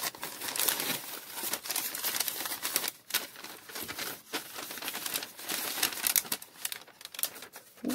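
Crumpled newspaper packing crinkling and rustling as hands pull it out of a cardboard shipping box. It is a near-continuous crackle with a brief pause about three seconds in.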